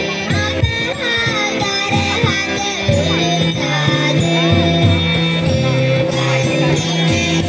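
Live band playing a Sinhala Buddhist devotional song (bhakti gee), with a steady repeating bass line under a melody, and a children's group singing along.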